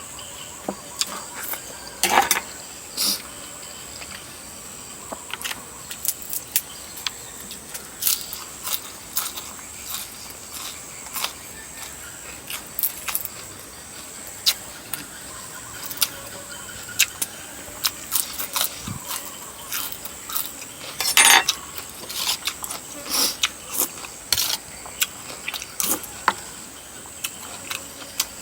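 Irregular small clicks and taps of a utensil against a bowl while eating, with a louder cluster of clatter about two-thirds of the way through, over a thin steady high-pitched tone.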